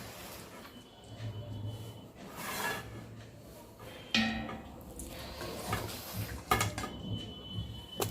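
Spoon and pieces of cooked mutton clattering and knocking against a large metal cooking pot as the meat is spooned in, with a ringing metallic clink about four seconds in and a sharp knock about two seconds later.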